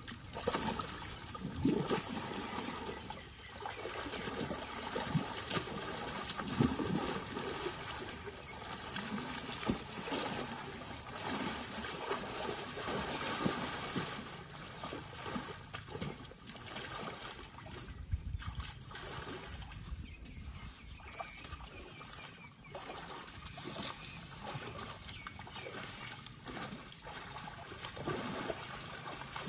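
Muddy water splashing and sloshing in irregular bursts as elephant calves roll and play in a shallow mud wallow.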